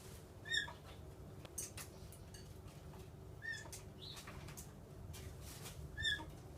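Small pet parrots giving three short, faint chirps a few seconds apart, with a few light clicks between them.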